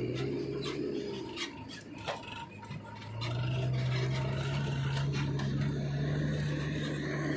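Diesel tractor engine pulling a loaded trailer of soil, with scattered knocks and rattles from the trailer. The engine note dips about a second and a half in, then picks up and holds steady from about three seconds in.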